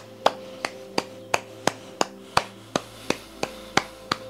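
One person clapping her hands at a steady pace, about three claps a second, over soft background music holding a steady drone.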